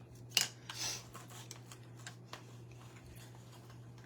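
Soft rustling and a few light clicks of craft pieces being slid and handled along a garland string, the clearest two in the first second.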